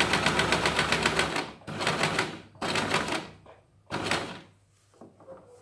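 Dream Stitch domestic electric sewing machine stitching in short start-stop runs, four of them, the needle going with a rapid even clatter. It is sewing the shortest stitch length along the side of a buttonhole.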